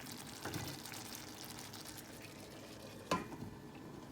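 Sausage and potato slices simmering in tomato sauce in a pan, a steady low sizzle, with a utensil knocking against the pan twice, the louder knock about three seconds in.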